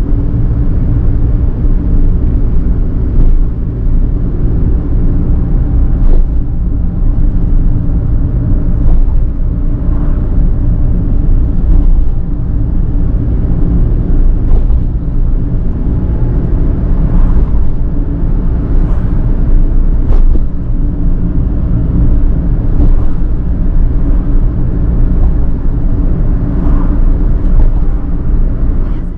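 Suzuki Every van driving steadily along a road: a constant low engine and road rumble with a steady engine hum, and a few light knocks from bumps in the road.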